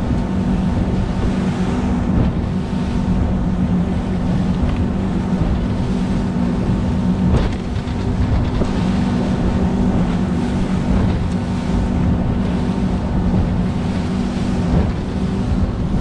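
A small fishing boat's motor running steadily under way, a constant low drone, with wind buffeting the microphone and water rushing past the hull.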